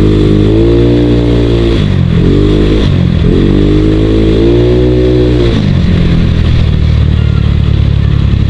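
Small motorcycle engine revving up as it accelerates, twice: the pitch climbs and holds, drops about two seconds in, then climbs again and falls away about two thirds through, over a steady low rumble.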